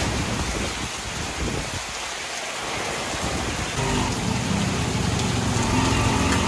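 Heavy rain pouring down, a loud steady hiss of water striking roofs and a paved street. About four seconds in, a low engine hum joins it, from a motorbike riding through the downpour.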